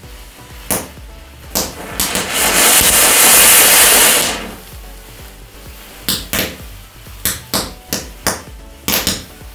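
A small Diwali fountain firecracker (anar) hissing loudly for about two seconds as it sprays sparks. Sharp pops and crackles from the burning matchstick line come before it and in a quick scatter after it.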